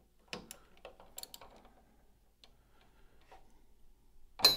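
Light scattered metal clicks and taps of a 3/8 ratchet extension and 6mm Allen socket being worked onto a rear brake caliper mounting bolt. Near the end comes one sharp metal clink that rings briefly.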